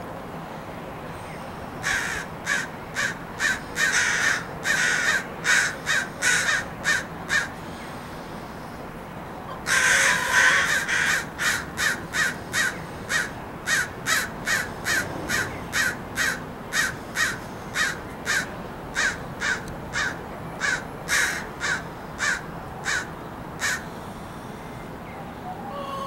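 Several crows cawing in a racket of fast, repeated caws: two long runs with a short break between, the second starting louder. The adults are agitated because their fledgling is down on the ground.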